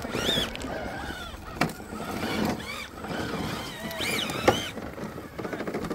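Electric motors of 1/10-scale RC rock-crawler trucks whining in short bursts that rise and fall in pitch as the throttle is blipped on the rocks. Two sharp clicks come about 1.5 s and 4.5 s in.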